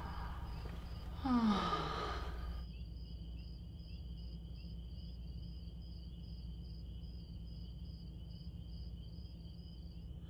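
A breathy sigh falling in pitch about a second in, then a steady, high, pulsing insect-like trill on two pitches over a low hum.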